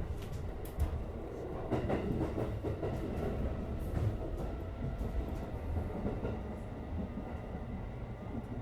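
JR West 205-series electric train running along the line, heard from inside the car: a steady rumble of wheels on rail, with several clicks and knocks over rail joints in the first couple of seconds.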